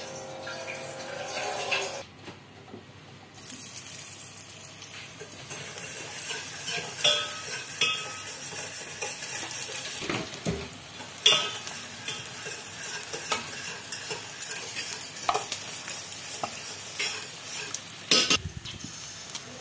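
Paneer snacks sizzling as they fry in hot oil, with a utensil stirring and clicking against the pan and one sharp knock near the end.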